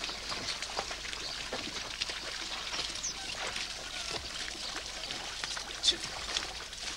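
Wet splashing and trickling of water and mud as a pair of bullocks draw a wooden plough through a flooded paddy field, many small sloshes and sucks of hooves and ploughshare in the mud, with one sharper, louder moment near the end.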